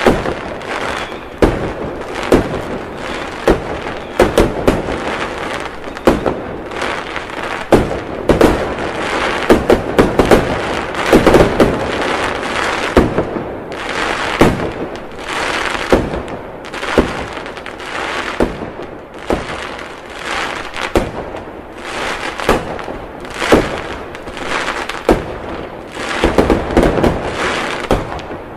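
Fireworks display: aerial shells bursting in a dense run of sharp bangs, often several a second, over continuous noise from the display.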